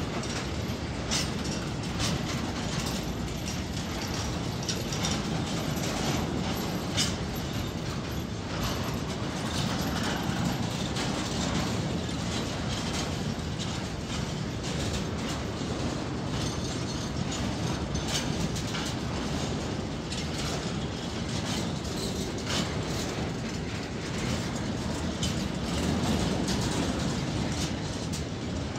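Freight train of orange Wascosa hopper wagons rolling past at steady speed: a continuous rumble of steel wheels on the rails, broken by frequent sharp clicks and clatter of wheels over rail joints.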